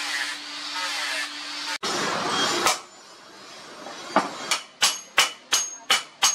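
A hammer striking a steel cleaver blank on an anvil: a quick run of sharp, ringing blows about three a second, starting about four seconds in. Before them comes a steady hiss lasting a couple of seconds.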